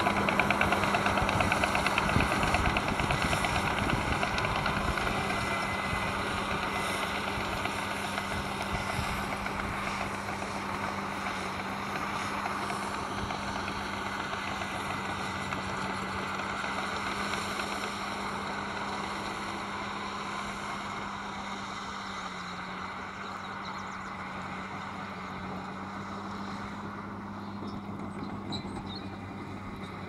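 Komatsu D65PX crawler dozer's diesel engine running steadily under load as it pushes soil, with clanking from its steel tracks. The sound fades gradually as the dozer moves away.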